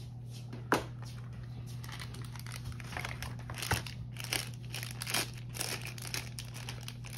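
Thin clear plastic packaging bag crinkling and rustling in the hands as a smart band is taken out of it, with a single sharp click near the start. A steady low hum runs underneath.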